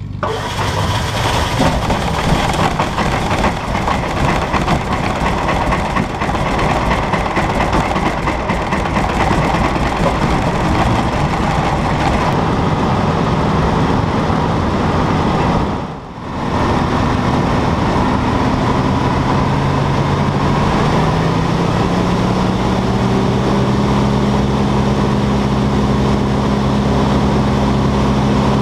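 Westland Lysander's radial engine running, heard from inside the cockpit as the aircraft taxis over grass. The sound is rough and noisy at first, dips sharply for a moment about halfway, then settles into a steady hum that rises slightly in pitch and holds.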